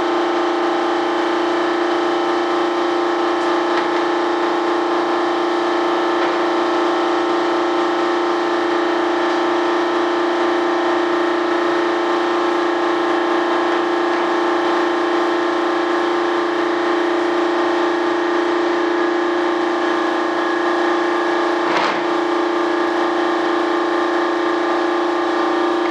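A steady machine drone with a strong hum and even overtones, unchanging in pitch and level, with one brief knock near the end.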